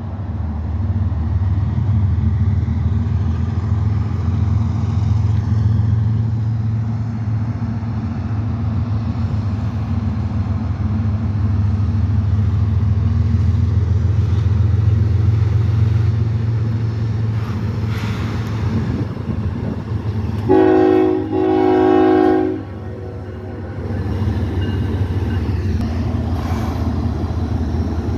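CSX freight train's diesel locomotives and cars rumbling steadily as they cross a steel trestle bridge overhead. About two-thirds through, the locomotive's air horn sounds as a salute: a short blast, then a longer one.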